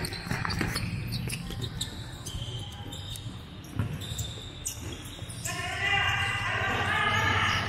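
Futsal ball being kicked and bouncing on an indoor court: scattered sharp knocks, with voices calling out from about two-thirds of the way in.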